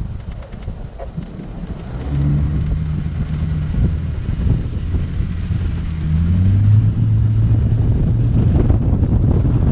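Four-wheel-drive vehicle's engine pulling steadily over a sandy dirt track, with tyre and body rumble and wind buffeting the microphone. The engine hum grows louder about two seconds in, and again after about six and a half seconds as its pitch rises briefly.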